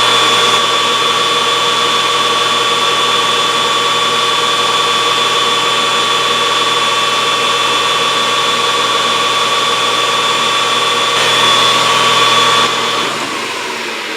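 Grizzly G4003G gearhead metal lathe running steadily at its top spindle speed of 1400 RPM with a constant whine during spindle break-in, with no untoward noises. Near the end it shuts off and the sound winds down as it coasts to a stop.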